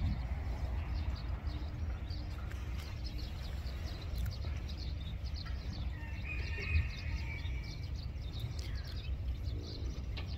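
Wind rumbling on the microphone, with scattered short bird calls and chirps over it.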